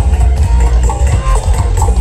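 Loud music with heavy bass and a repeating melody, played through a boat-mounted stack of sound-system speakers.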